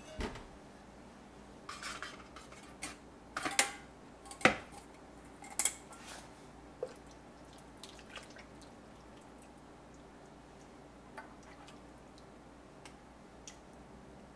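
Stainless steel bowls clinking against a metal pot and each other as chicken soup is served into them. Most of the clinks come in the first six seconds, the loudest about four and a half seconds in, then only a few faint ticks follow.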